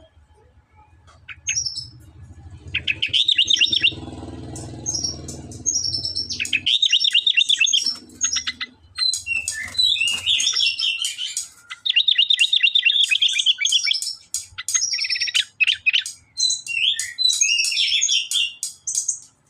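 Sooty-headed bulbul (kutilang) singing vigorously: repeated bursts of rapid, high chattering notes, phrase after phrase. A faint low hum lies underneath during the first few seconds.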